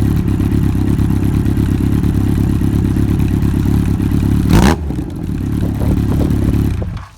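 Yamaha XJR1200 air-cooled inline-four idling through a short two-piece Mizuno Motor exhaust with its standard silencer fitted. About four and a half seconds in, one quick blip of the throttle rises in pitch, and then the engine settles back. The engine sound cuts off near the end.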